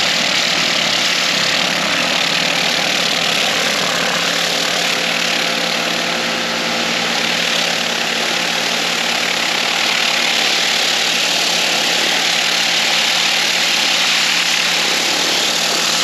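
Pressure washer running steadily, a motor hum under the hiss of the water spray, rinsing soap out of car floor carpets.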